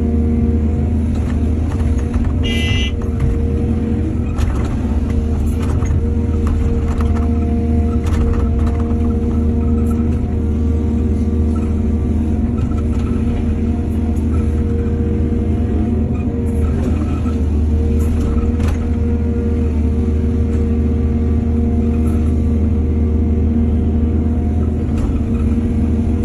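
Excavator's diesel engine running steadily under work, with scattered knocks and clanks throughout. A brief high-pitched squeak comes about three seconds in.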